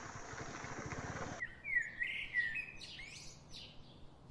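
Motorcycle running over a rough dirt track for about the first second and a half, then that noise cuts out suddenly and birds chirp: several short calls sweeping up and down in pitch, the loudest about two seconds in.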